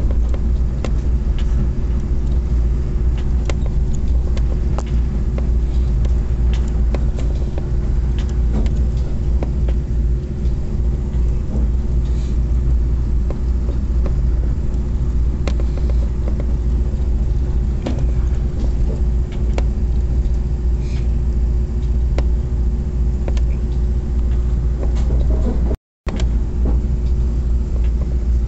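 Passenger train on the Copper Canyon railway running along the track: a steady low rumble with a constant hum and frequent short clicks and knocks from the wheels and carriage. The sound cuts out for a moment near the end.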